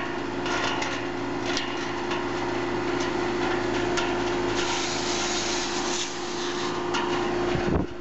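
Carrier central air-conditioning condenser unit running with a steady hum, its coils hosed down with water. Over the hum come repeated brushing and rustling noises from handling and moving through plants, thickest about five to six seconds in.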